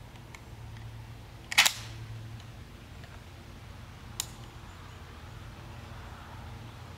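Mechanical clicks from a Mossberg 590M 12-gauge pump shotgun being handled as it is shouldered and aimed: a loud metallic clack about one and a half seconds in and a lighter, sharp click about four seconds in. A steady low hum runs underneath.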